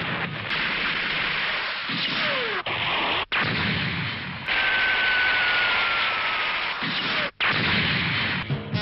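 Animated battle sound effects: beam-gun shots and explosions as aircraft are blown up, in short clips cut together with abrupt breaks. A high whine falls slowly in pitch through the middle.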